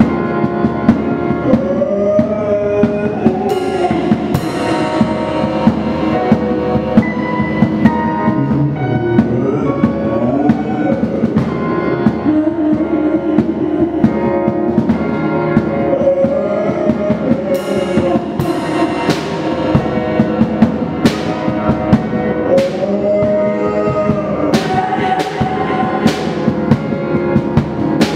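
Live improvised band music: a drum kit played under sustained, shifting keyboard and synth tones. Sharp drum and cymbal hits come more often in the second half.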